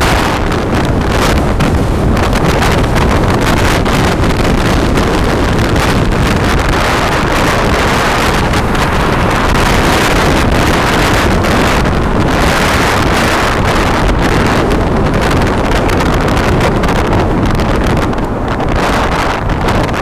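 Loud, steady rushing and buffeting of wind on the microphone.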